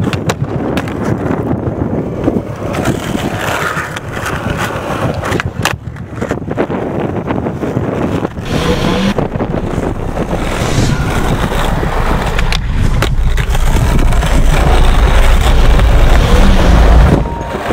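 Skateboard wheels rolling over rough asphalt, a steady rumble broken by sharp clacks of the board popping and landing. The rumble grows louder toward the end and drops off just before it.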